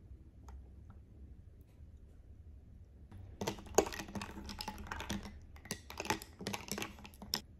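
Glass straw stirring a drink in a stemmed glass, clinking rapidly against the glass in quick runs of clicks that start about three seconds in, with a few short pauses.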